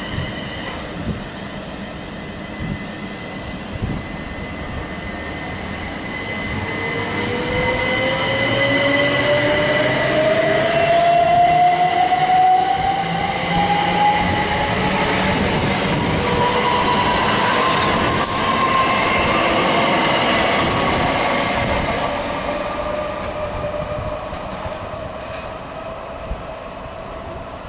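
Electric multiple-unit passenger train pulling away and accelerating past along the platform: its traction motors give a whine that rises steadily in pitch over about eight seconds, over loud wheel and rail rumble that swells and then fades.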